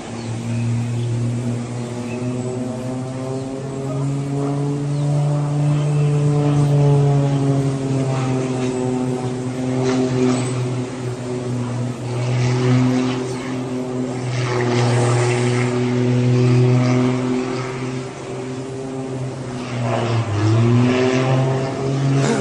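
Propeller airplane's piston engine droning, its pitch slowly rising and falling as the aircraft flies, with stretches of louder rushing noise in the middle.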